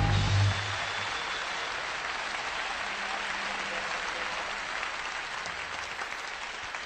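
Concert audience applauding after the band's final chord cuts off about half a second in.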